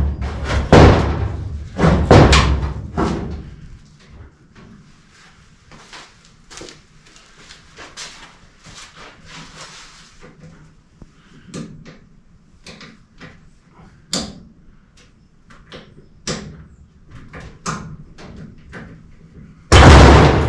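Heavy sheet-metal clanks and thuds from work on a car body, several loud knocks in the first few seconds, then only scattered light taps and clicks. Loud clattering starts again near the end.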